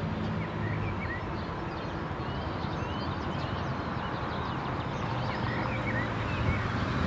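City street traffic with an engine running low and steady, growing slightly louder near the end as vehicles approach, with small birds chirping in short bursts of calls over it.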